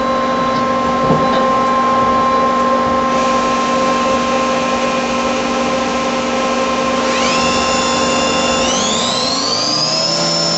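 Star SV-20 CNC Swiss-type lathe running with its live tools, a steady machine whine of several tones, with a high hiss that cuts off about three seconds in. About seven seconds in, the spindle speeds up toward 10,000 RPM: its whine rises steeply in pitch and levels off high, and a second rising whine joins near the end.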